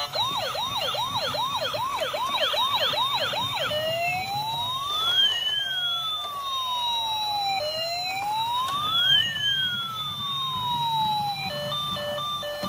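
Toy ambulance's electronic siren through its small speaker: a fast warble for about four seconds, then a slow wail rising and falling twice. Near the end it switches to a tune of short beeps.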